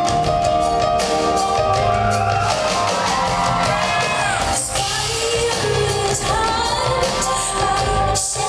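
Live concert music in a large hall: a woman singing a melodic line over a band with a steady low bass and percussive beat.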